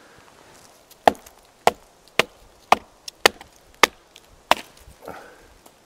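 Seven sharp knocks, about one every half second, as a chaga growth on a birch trunk is struck to knock a piece of it loose.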